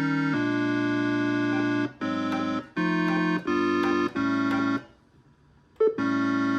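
Omnichord OM-84 sounding a series of held organ-like electronic chords, switching to a new chord about once a second, with a brief silence about five seconds in before the chords resume.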